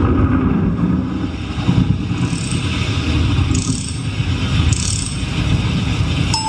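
A loud, low rumbling noise with a few faint, high shimmering swells. Near the end a single bell-like chime note rings out.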